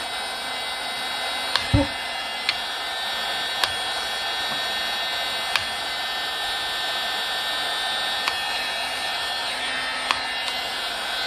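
Milwaukee M18 cordless heat gun running steadily, its fan blowing with a steady hiss and faint whine as it heats a decal's glue to loosen it. A few short sharp ticks and one soft thump a little under two seconds in.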